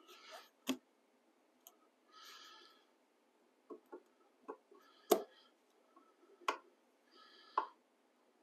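Hand tools and metal parts clinking inside a DEWALT 735X thickness planer's cutterhead housing during reassembly. There are about half a dozen sharp metallic clicks and knocks, the loudest about five seconds in, with a few short scraping or rasping bursts between them.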